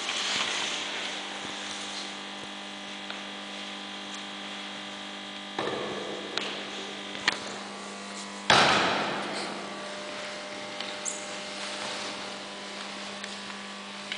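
A steady electrical hum, with a few knocks and scuffs of bodies moving on a wooden gym floor; the loudest, a sudden thud followed by a fading rush of noise, comes about eight and a half seconds in.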